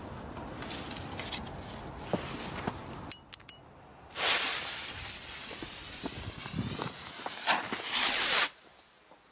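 Rustling and footsteps on the ground, then a couple of sharp clicks and a loud hissing burst as a skyrocket's fuse is lit with a long lighter about four seconds in. Near the end the rocket motor ignites and the rocket launches from its ground tube with a loud whoosh lasting about half a second.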